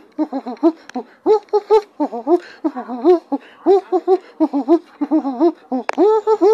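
A high voice making a quick string of short, bouncing wordless syllables, then sliding up into one long held note near the end.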